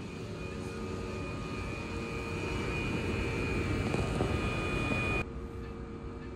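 Steady electric hum and whine from a standing electric train at a station platform, growing louder, then cutting off abruptly about five seconds in and leaving a quieter hum.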